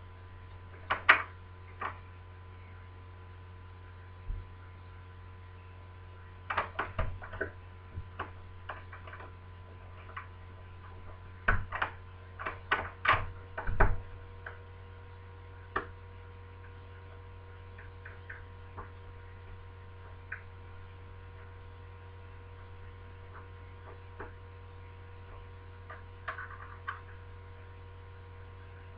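Scattered metallic clicks and light taps of a lock pick working the levers of a BS 3261 lever deadlock fitted in a door, in short clusters, over a steady background hum.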